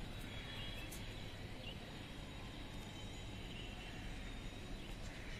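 Open-air ambience: a steady low rumble with a thin steady high tone and faint, scattered high chirping calls.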